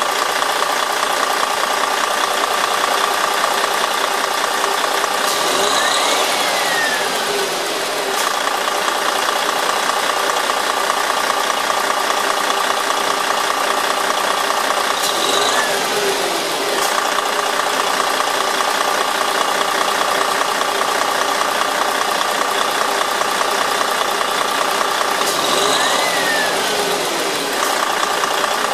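A large coach's 13-litre straight-six turbodiesel idling steadily. About every ten seconds a short whine rises and falls over the engine note.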